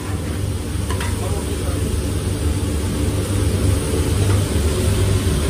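Sliced mushrooms and meat sizzling on a flat-top steel griddle, with a metal spatula clacking on the plate once about a second in, over a steady low rumble.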